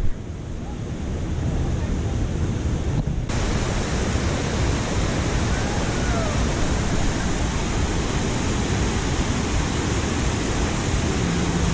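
Steady rushing of river water over falls and rapids, with wind buffeting the microphone at the low end. The hiss turns fuller and brighter about three seconds in.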